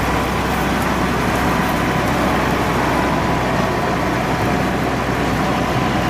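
New Holland combine harvester running, its engine and machinery giving a steady, even drone.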